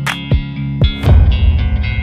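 Background music with electric guitar and bass over a beat, with a few sharp drum hits in the first second. A loud low rumble joins about halfway through.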